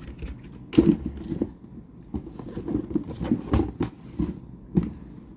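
Handling noises from unboxing a pair of leather shoes: an irregular run of soft knocks and short rustles, the loudest knock about a second in.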